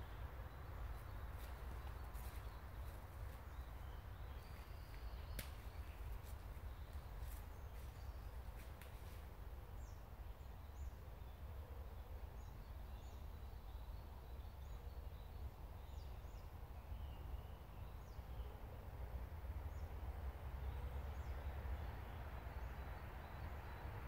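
Woodland ambience: a steady low rumble under a soft even hiss, with faint, short, high bird chirps scattered through the second half and a few sharp clicks in the first half.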